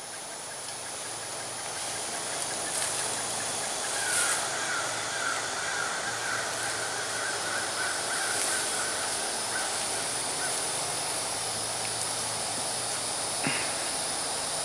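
Woodland outdoor ambience: a steady hiss with a thin high steady tone, a faint low hum, and a buzzing drone that starts about four seconds in and stops about six seconds later.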